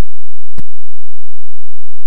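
A sudden break in the audio with one sharp click a little over half a second in, and no other sound to be heard.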